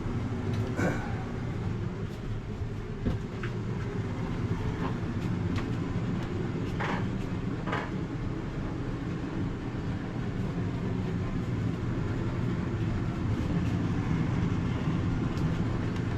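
Steady low machine hum, with a few scattered clicks and knocks from handling the refrigerator's freezer door and hinge hardware.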